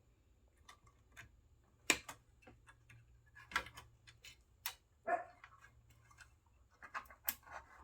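Scattered sharp clicks and taps of small parts and tools being handled on a workbench, with one short dog bark about five seconds in.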